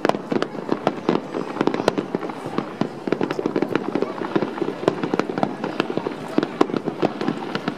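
Fireworks bursting in quick succession: a dense, unbroken run of sharp pops and bangs, several a second.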